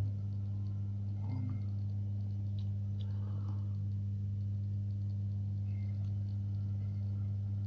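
Low, steady electrical hum that switches on suddenly and holds at one pitch, with faint light clicks of a lock pick working pins in a euro cylinder lock.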